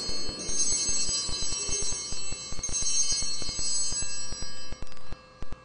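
Altar bells rung at the elevation of the consecrated host: small high-pitched bells shaken twice, each time ringing out, then fading away about five seconds in.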